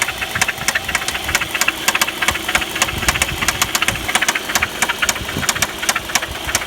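Audi 1.8T AEB turbocharged 20-valve four-cylinder engine running with a fast, even ticking knock, several strikes a second. The owner thinks it sounds like the hydraulic lifters, since the chain tensioner is new and the oil pump was recently replaced.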